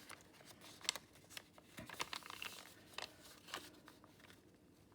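Faint rustling and scattered light clicks of a sheet of paper being folded and creased with a bone folder.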